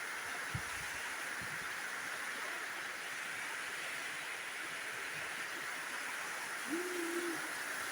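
Heavy rain falling steadily in strong wind, with a few low thumps of wind hitting the microphone in the first two seconds. A short, low hooting call sounds near the end.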